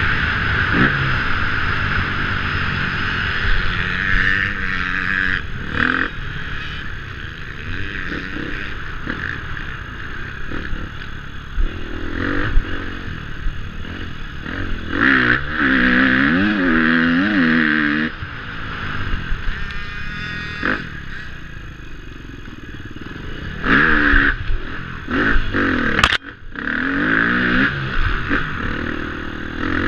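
KTM 250F four-stroke single-cylinder dirt bike engine revving up and down as it is ridden hard over rough, rutted ground, heard close up from a camera mounted on the bike. A sharp knock comes near the end.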